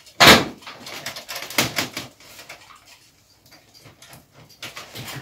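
Clicks and knocks of wires being worked free of the push-in terminals of a fluorescent light fitting's ballast, with the metal fitting being handled. One sharp click about a quarter second in, a few more around two seconds, and further clicks near the end.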